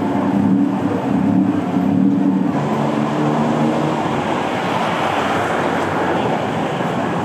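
A moving vehicle running, a steady rumble with low humming tones that change pitch about two and a half seconds in.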